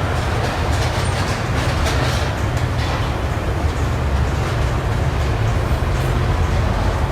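Steady low rumble of shop-floor background noise in a manufacturing plant, with a few faint clicks and taps.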